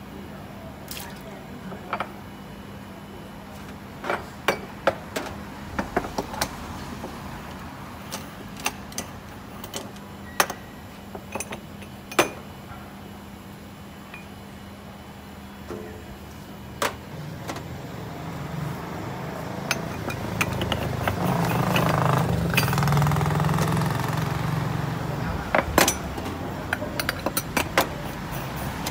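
Sharp metal clinks and clacks of aluminium moka pots being handled, unscrewed and set down on a metal stove top. In the second half a motor vehicle passes, swelling and fading.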